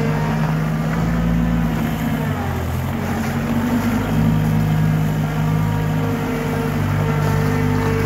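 Mustang skid-steer loader's engine running steadily as the machine drives and turns. The engine note drops about two seconds in and comes back up about four seconds in.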